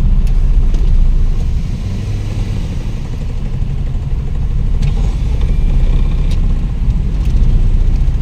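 Low steady rumble and vibration inside a car's cabin as the car rolls slowly up a ferry's steel loading ramp onto the vehicle deck. The shaking comes from the ramp surface, not from a fault in the car.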